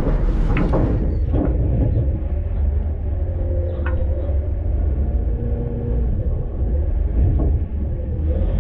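Front-load garbage truck rumbling steadily, heard from inside its hopper, with a few light knocks.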